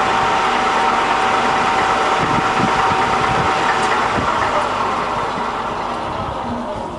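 Baoji BJ-1640GD centre lathe running with its spindle at about 70 rpm in the low range, reverse direction: a steady gear and motor running sound with a held tone. The tone drops out about four seconds in and the running sound then slowly fades as the machine winds down.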